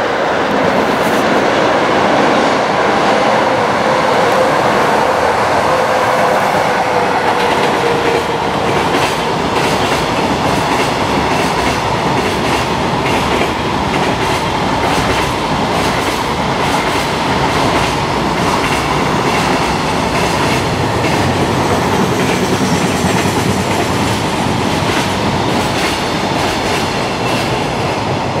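A long freight train passing at speed on elevated slab track. Its wagon wheels clack repeatedly over the rail joints above a steady rumble of wheels on rail. A tone drops slightly in pitch during the first several seconds.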